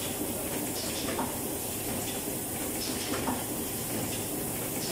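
Wet wipes packaging machine running: a steady mechanical noise with hiss, and a short sound recurring about every two seconds as the machine cycles.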